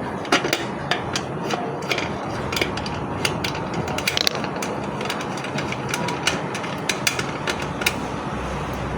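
Irregular sharp clicks and light knocks, like parts and packaging being handled, over a steady background hiss.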